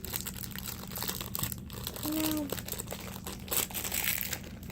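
Irregular crinkling and rustling of something crinkly being handled. About two seconds in there is a short hummed voice sound.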